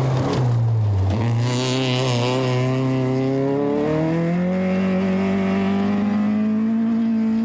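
Nissan Pulsar rally car's four-cylinder engine revving hard through a gravel corner. Its pitch dips and comes back about a second in, then steps up and climbs to steady high revs, with a hiss of thrown gravel early on.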